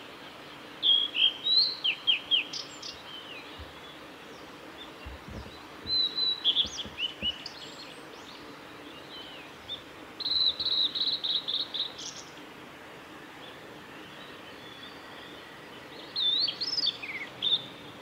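Male blue-and-white flycatcher singing: four short phrases of high whistled notes sliding up and down, each about two seconds long and several seconds apart. The third phrase is a fast run of repeated notes ending in one higher note.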